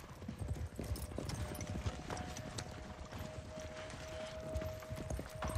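Hoofbeats of several ridden horses on sandy ground, a quick, uneven clatter.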